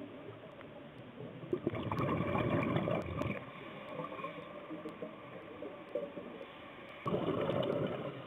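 Scuba diver breathing underwater: two bursts of exhaled regulator bubbles, each lasting about a second and a half, a few seconds apart.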